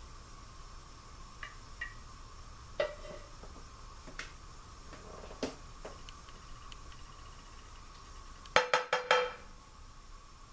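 Light clinks and taps of kitchen dishes and utensils, a few with a short ring, then a quick run of five or six sharp clatters near the end, over a faint steady hum.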